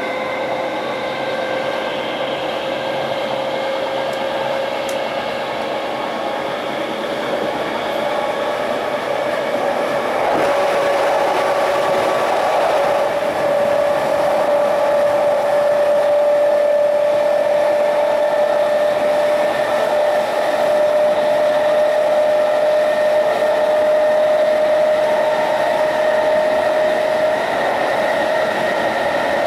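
Brush TM2141C traction motors of a Class 321 electric multiple unit whining under power, heard from inside the carriage over the rail running noise. The whine's pitch climbs slowly and grows louder about ten seconds in as the train gathers speed.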